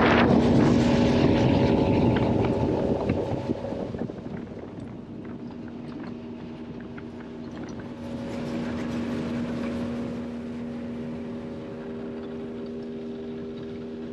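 Flats boat running at speed: the outboard engine makes a steady drone under rushing wind and water noise. The rush is loudest over the first few seconds, then eases.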